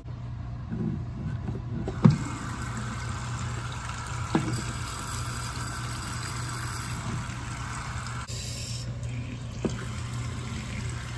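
Bathroom sink faucet running steadily into the basin, with three sharp clicks as it is handled. The faucet's hot side leaks around the handle stem, which the plumber puts down to a cartridge body needing replacement.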